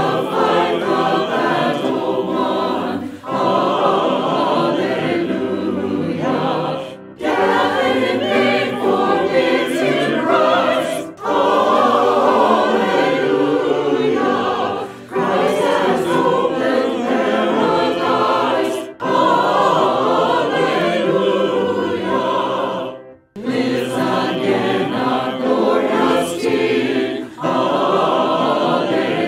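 A virtual choir of men's and women's voices, recorded separately and mixed, singing a hymn in phrases of about four seconds, each followed by a short break.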